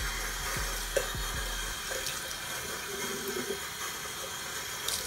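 Bathroom tap running steadily into a sink, with a light knock about a second in.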